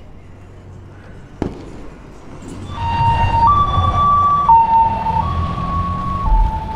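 Ambulance two-tone siren alternating between a lower and a higher note about once a second, starting about three seconds in over low traffic rumble. A single sharp click comes about a second and a half in.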